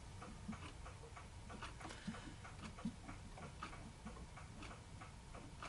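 Faint, fairly even ticking, a few ticks a second, over a low steady hum.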